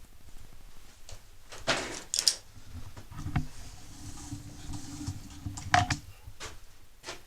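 A tape measure being fetched and used: a few clicks and knocks, then a steady low sliding sound for about three seconds as the blade is drawn out, ending in more clicks.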